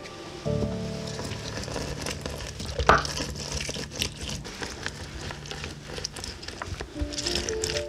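Food frying and sizzling in a hot pan and being stirred, a steady hiss with a sharp clack of a utensil about three seconds in.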